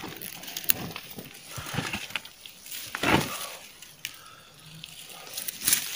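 Irregular rustling and crackling of leaves, moss and twigs as a hand picks chanterelle mushrooms from low forest undergrowth, with one louder rustle about three seconds in.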